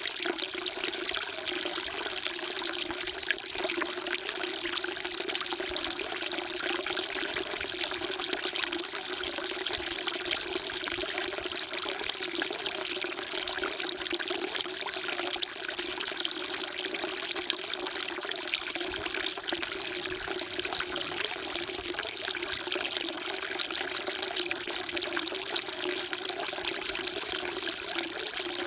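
Water falling into a stone temple water trough, a steady, unbroken splashing trickle.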